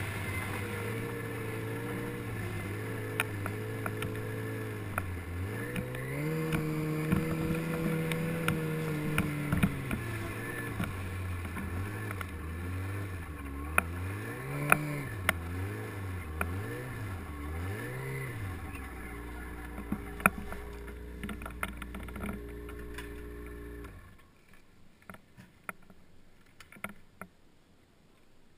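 Snowmobile engine running at low speed, its pitch rising and holding for a few seconds, then several short revs up and down before it settles to a steady idle. It cuts off suddenly about four seconds before the end, leaving only a few faint clicks.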